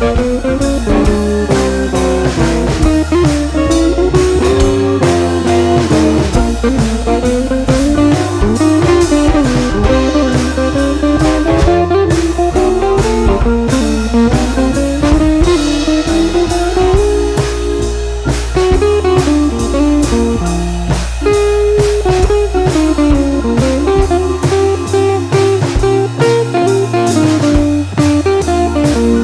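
Instrumental background music: a melody line that wanders up and down over a steady beat.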